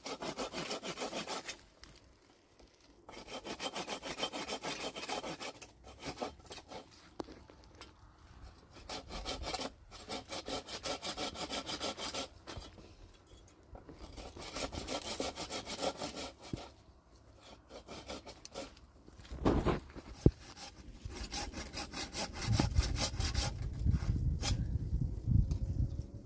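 Hand saw cutting through wood in bouts of rapid back-and-forth strokes, each lasting a few seconds, with short pauses between. There is a single heavier thump about three-quarters of the way through.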